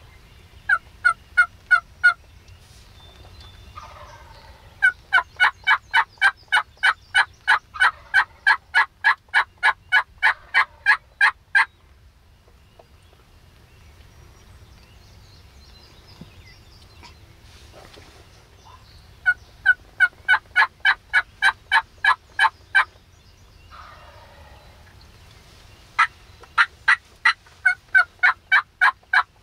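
Turkey yelping: runs of loud, evenly spaced notes at about four a second. The first run is short, the second lasts about seven seconds, and two more runs follow after a pause.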